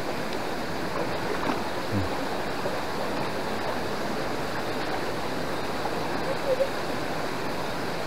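Steady rushing of river water flowing towards a waterfall.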